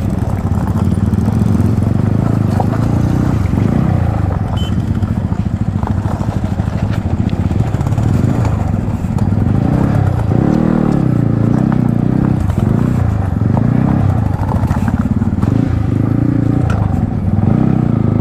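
Yamaha MT-15's single-cylinder engine running while riding, through an aftermarket Akrapovic exhaust. The engine speed rises and dips about ten seconds in.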